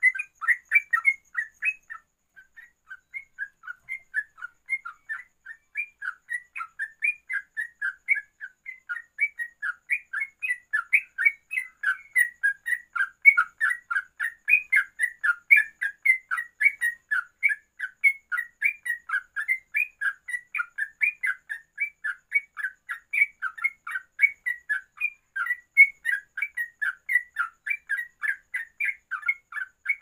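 Yellow-vented bulbul (trucuk) singing a fast, unbroken run of short chirping notes, about three a second: the rapid 'ropelan' style of song.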